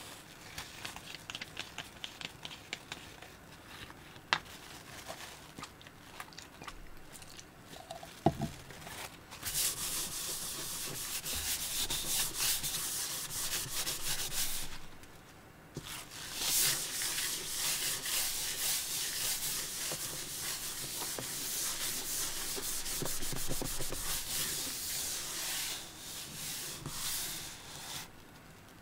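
A paper tissue rubbed back and forth over a wooden tabletop, in two long spells of scratchy rubbing with a brief break about halfway through. Before the rubbing starts there are only a few light clicks and taps.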